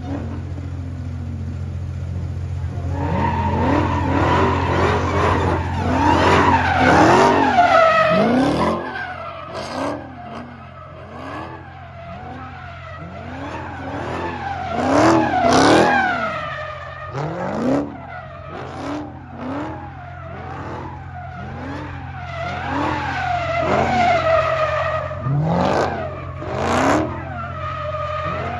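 A car engine revving up and falling back again and again, with tires squealing, as in drifting or donuts. A steady low hum runs underneath.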